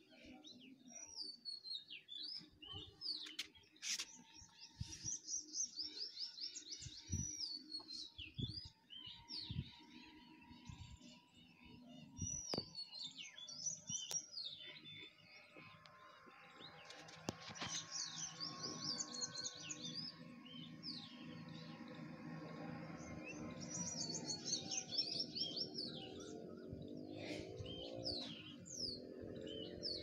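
Birds chirping in quick, high-pitched runs of notes that repeat again and again. In the second half, water poured from a steel tumbler splashes into a steel plate.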